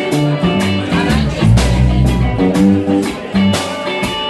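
Small live band playing a blues-rock groove: electric and acoustic guitars over a bass line and a steady drum beat.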